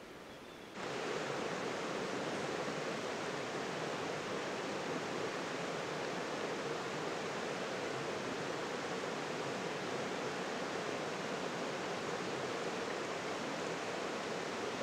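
Steady rush of flowing water, cutting in suddenly about a second in and then holding even.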